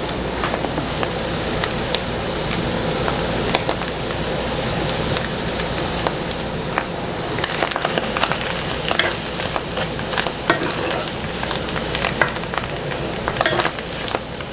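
Onions, mushrooms and garlic sizzling in butter and oil in a skillet, with a utensil scraping and clicking against the pan now and then as they are stirred.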